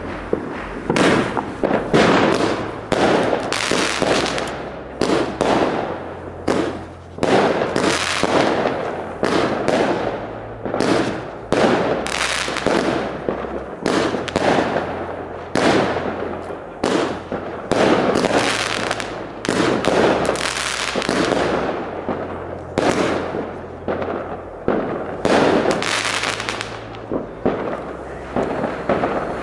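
Consumer firework battery (JW 07 Mars) firing shot after shot in a rapid, unbroken sequence, about one to two loud bangs a second.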